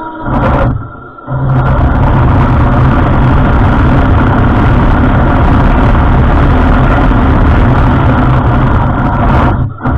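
Heng Long Tiger II RC tank driving on pavement: its metal tracks clattering and its drive motors running under the sound unit's simulated engine noise. The sound drops out twice in the first second and a half, then runs on loud and steady until a short dip near the end.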